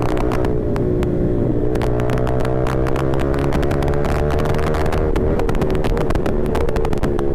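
Yamaha R15 V4 motorcycle's single-cylinder engine running through a full-system aftermarket exhaust at fairly steady revs while riding, the pitch rising and dipping slightly.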